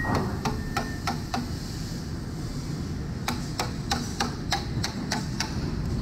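Hammer striking a wood chisel as it cuts a notch into a large timber beam: a quick run of five blows, a pause of about two seconds, then eight more blows at a steady three or so a second.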